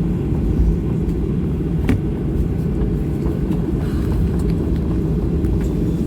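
Cabin noise inside a Boeing 737-800: a steady low rumble of the engines and airframe, with a brief knock or rattle about two seconds in.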